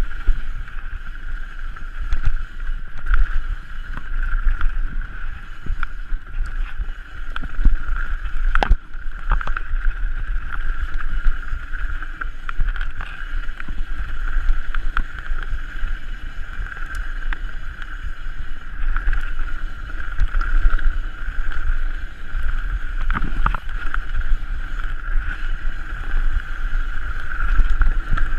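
Mountain bike descending a trail at speed: wind buffeting the microphone and tyres rolling over dirt, with the chain and frame rattling and sharp knocks over bumps, the loudest about nine seconds in. A steady high buzz sits underneath.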